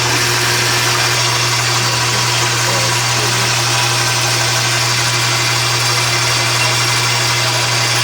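Crane National 673 coffee vending machine brewing a cup: the whipper motor runs steadily with a constant low hum, mixing the coffee powder with hot water.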